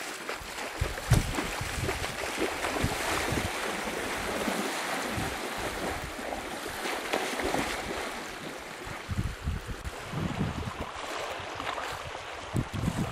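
Wind gusting over the microphone in uneven rumbles, over a steady wash of small lake waves lapping at the shore.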